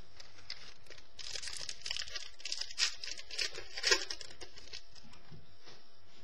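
Football trading cards being handled and flipped through: a run of soft flicks and rustles from about one to four seconds in, quieter after that.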